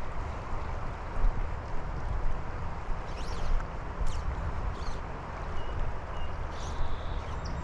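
Steady rush of flowing river water with a low, uneven rumble underneath, broken by a few faint clicks and two brief high chirps.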